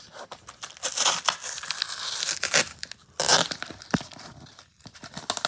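A mailing package being pulled and torn at by hand, its wrapping crinkling and ripping in rough bursts. The loudest come about a second in and just after three seconds. The package is resisting being opened.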